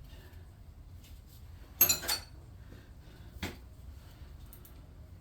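Metal tools being handled: two sharp metallic clinks with a brief ring about two seconds in, and a lighter knock about a second and a half later.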